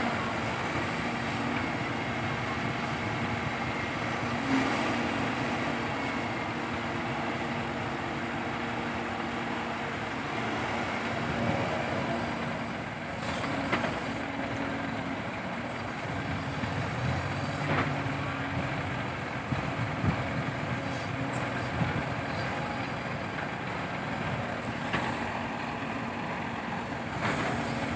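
Diesel engines of a Sumitomo SH130 excavator and a dump truck running steadily while the excavator loads soil into the truck's bed, with a few short knocks scattered through.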